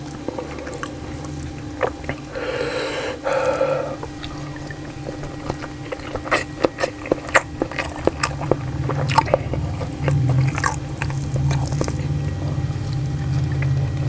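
Close-up wet chewing and mouth smacking of a person eating, heard as many short irregular clicks and squishes, with a short muffled noise about three seconds in.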